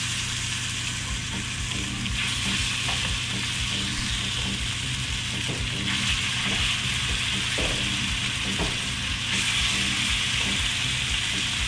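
Pieces of seasoned grouper fillet sizzling in hot avocado oil in a stainless steel skillet on high heat as they are laid in one at a time, with a steady hiss and occasional pops.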